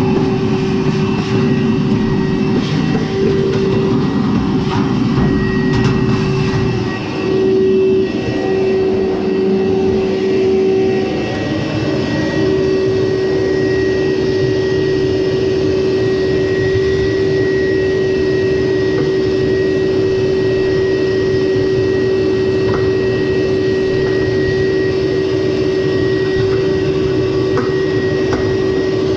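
Frigidaire electric dryer running: a steady motor hum over a low rumble, with a brief dip about seven seconds in.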